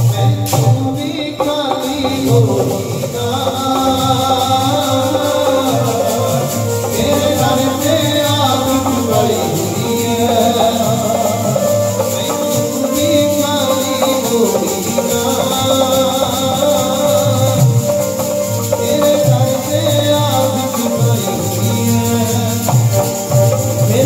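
Sikh kirtan: a man singing to a harmonium's steady reeds with tabla accompaniment, played through a PA system's loudspeakers.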